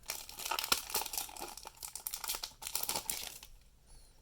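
Foil wrapper of a Pokémon TCG booster pack crinkling loudly as it is opened. The crinkling stops about three and a half seconds in, leaving only a few faint ticks.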